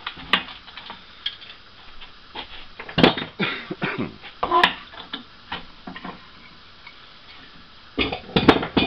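Steel C-clamps being unscrewed and taken off a pair of wooden boards on a metal table saw top: scattered clanks, knocks and scrapes, loudest a few seconds in and again near the end as clamps and boards are handled and set down.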